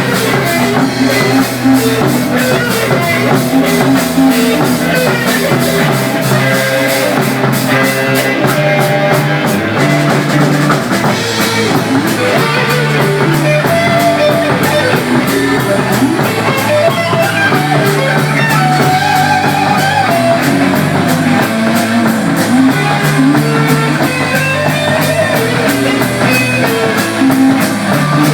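Live rock band playing an instrumental: electric guitar lines over bass and a drum kit, with a steady cymbal beat.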